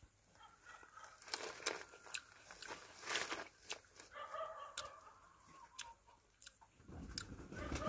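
Hands peeling and pulling apart a dekopon (Hallabong) mandarin while eating it: scattered crackling, tearing and snapping clicks from the rind and flesh, with louder handling noise near the end. Short animal calls sound in the background.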